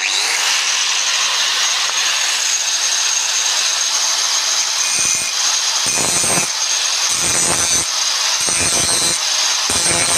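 Electric angle grinder with an abrasive disc running at full speed, a steady high-pitched whine over loud grinding noise. From about halfway, the disc is pressed against a concrete slab again and again, about once a second, each contact adding a heavier, lower grinding surge and throwing sparks.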